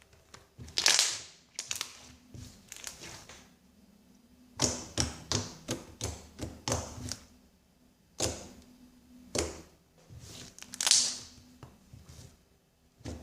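Homemade glue slime being squeezed and worked in the hands, giving off sharp clicks and pops in irregular clusters: the clicky sound of a freshly made slime.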